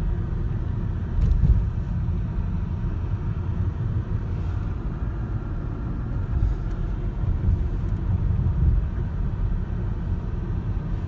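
Low, steady rumble of a small Volkswagen Golf driving along a street, heard from inside the cabin: engine and tyre noise. It is briefly louder about a second and a half in.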